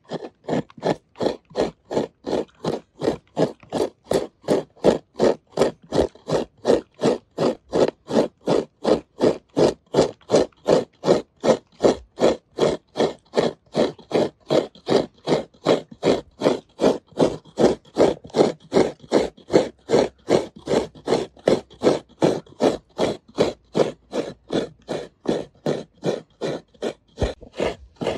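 Half a coconut being grated by hand against a serrated metal coconut scraper: steady rhythmic scraping strokes, about two and a half a second, as the flesh is shredded from the shell. The strokes stop suddenly near the end.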